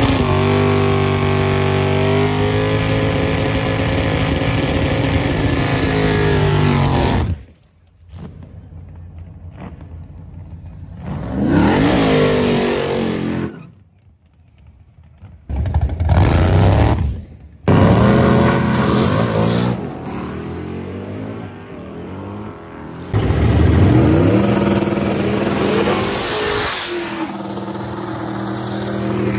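Drag-racing cars accelerating hard, engine pitch climbing under full throttle. The sound comes in several short passes that cut off abruptly one after another.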